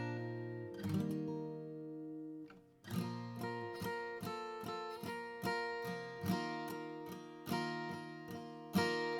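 Atkin The Nineteen steel-string acoustic guitar strung with phosphor bronze strings and played with a pick. A chord rings out and fades away, there is a short gap about three seconds in, then a steady run of picked chords.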